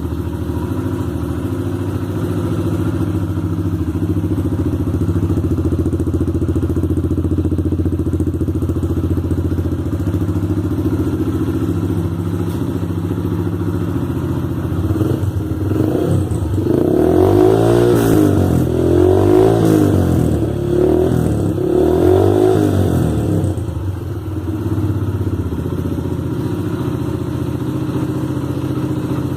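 Yamaha YBR 125 Factor motorcycle's single-cylinder four-stroke engine running through a Roncar aluminium aftermarket exhaust: a steady idle, then several quick throttle blips about halfway through, each rising and falling in pitch, before it settles back to idle.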